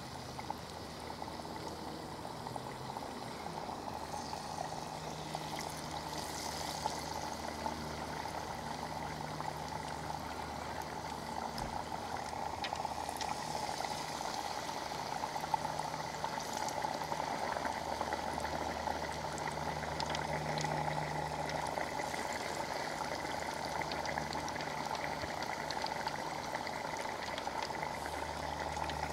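Battered cod pieces frying in a deep-fat fryer: the hot oil bubbles and sizzles steadily, getting a little louder as more pieces go in.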